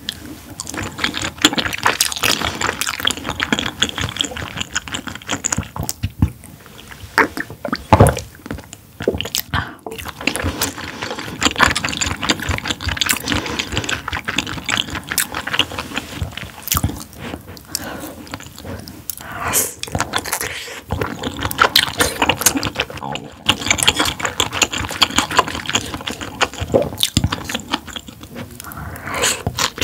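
Close-miked mukbang eating sounds: a person chewing a meal of squid innards, with dense mouth clicks throughout and a sharp knock about eight seconds in.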